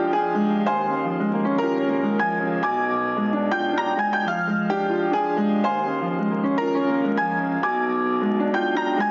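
Background piano music with a steady flow of notes.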